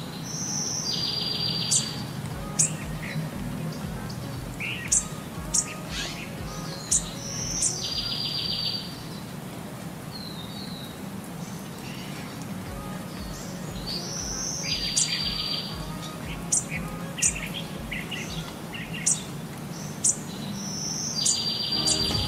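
Birds singing: short, sharp high chirps every second or so, and a buzzy trilled phrase that recurs the same way about every seven seconds, over a low steady hum.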